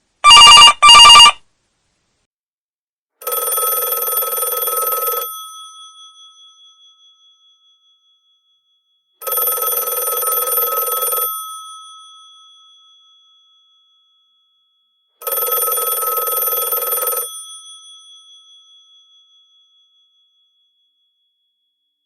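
Telephone bell ringing. First comes a loud, short double ring, then three rings of about two seconds each, six seconds apart, each fading away after it stops.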